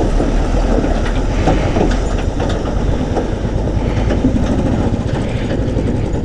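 Motorcycle engine running at low speed while the bike rolls over a rough, rocky track through a shallow water crossing. Irregular clicks and knocks from stones and the rattling bike run through it, with a truck close alongside.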